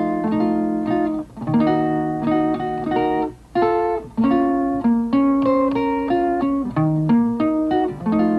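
Background music on guitar: plucked notes and strummed chords that change every half second to a second, over a faint low hum.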